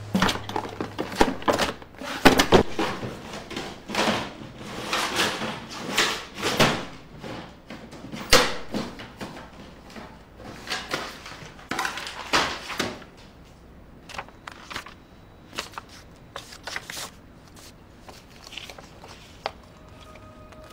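Someone rummaging through a desk: drawers opening and shutting, and papers and objects being shuffled and knocked about in a busy, irregular run of clunks and rustles that thins out to scattered clicks after about thirteen seconds. Soft held music notes come in near the end.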